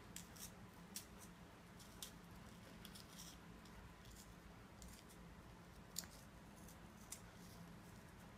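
Near silence with faint, scattered crackles of chocolate biscuits being crumbled by hand, the sharpest about six seconds in. A faint low hum runs underneath.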